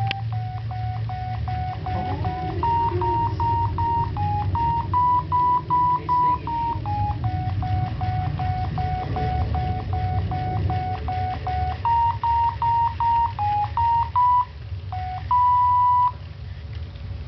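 Sony Aibo robot dog playing a simple tune of electronic beep notes, one short note after another, ending on a longer held note. A steady low hum runs underneath.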